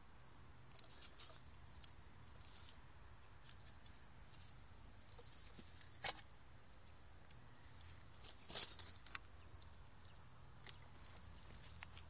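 Near silence with faint scattered clicks and rustles, a sharper click about six seconds in and a short cluster a couple of seconds later: a Eurasian magpie pecking and hopping in straw stubble around a metal detector's search coil.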